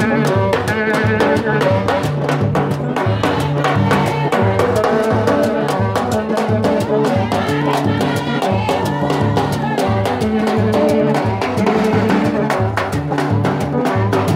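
Rara band playing: metal cone horns (konè) and blown tubes blaring repeated notes over hand drums and a snare drum keeping a steady beat, with voices singing along.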